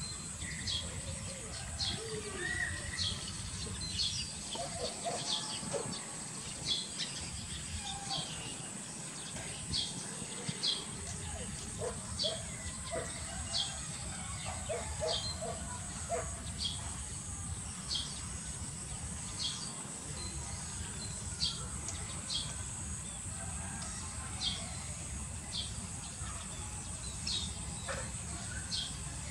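Outdoor ambience: a bird chirping short high calls about once a second over a steady high insect drone and a low background rumble.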